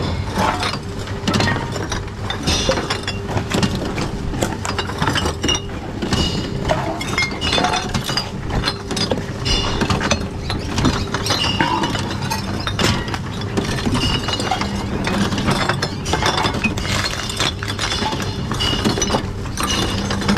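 Reverse vending machines taking in empty drink containers: a steady motor hum with whirring, ratcheting mechanisms, and many clunks as glass bottles, cans and plastic bottles are fed in one after another, with glass bottles clinking and clattering.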